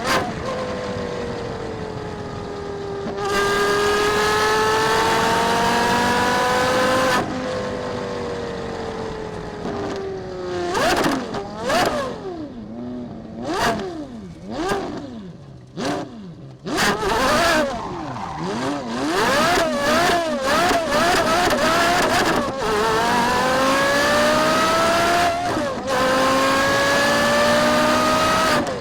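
Porsche Carrera GT's V10 engine pulling hard through the gears, its pitch climbing and dropping at each shift, then a run of quick throttle blips and revs, then two more rising pulls through an upshift.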